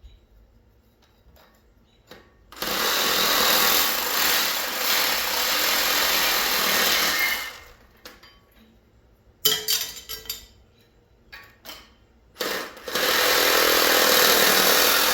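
Reciprocating saw (Sawzall) cutting through copper tubing, in two long runs: one starting about two and a half seconds in and lasting about five seconds, another starting near the end. A few sharp knocks fall in the pause between them.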